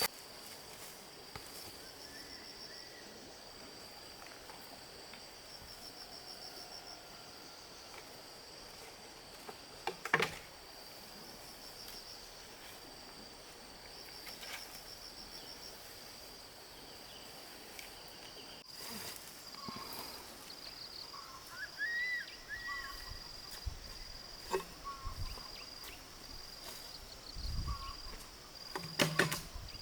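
Insects, cricket-like, trilling on one steady high note that turns into short regular pulses in the second half. A few sharp knocks and some short chirps are heard over it.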